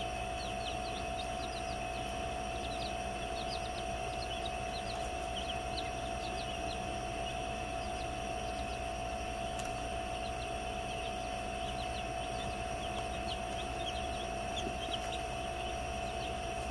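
Brooder chicks peeping: many short, high chirps, several a second, over a steady electrical hum.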